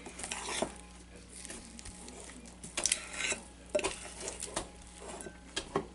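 A metal spoon stirring thick, sticky homemade slime (glue and shaving cream) in a glass bowl. Short scrapes and knocks of the spoon come at uneven intervals.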